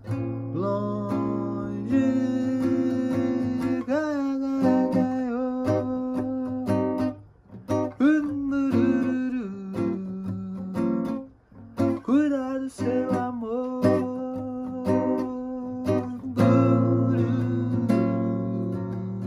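Acoustic guitar played while a man sings along, his voice sliding up into several long held notes.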